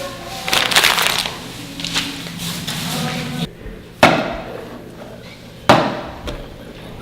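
A noisy rustling burst, then two sharp knocks with a brief ringing tail, about a second and a half apart.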